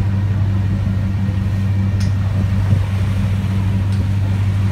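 Steady low drone of a ship's engine, a constant hum under the rush of churning wake water.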